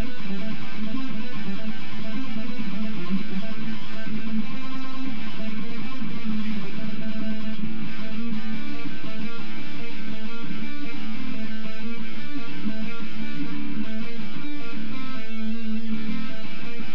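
Electric guitar played alone, picking out a riff of single notes.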